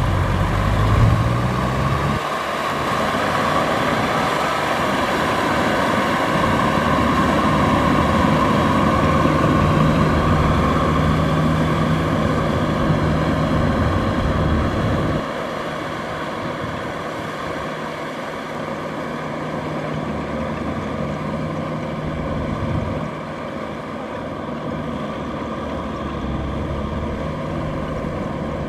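Tractor engine running steadily under load in mud. The low rumble drops away suddenly about two seconds in and again about fifteen seconds in.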